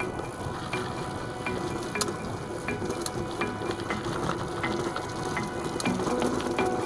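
Mountain bike rolling fast over a dirt and gravel track: tyres crunching and hissing on the ground, with the rear hub's freewheel ticking as the rider coasts.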